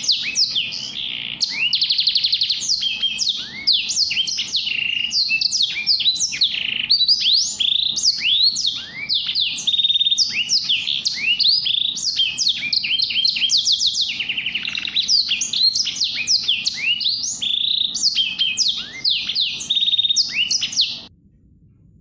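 A small songbird singing a fast, varied finch song of quick rising chirps and rapid rolled trills, running on without a break, then cutting off suddenly near the end.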